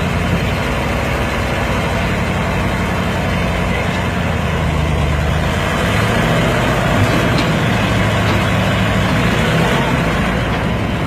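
Diesel engine of a heavily loaded truck labouring on a slope: a steady, loud low drone that rises slightly in pitch about six seconds in.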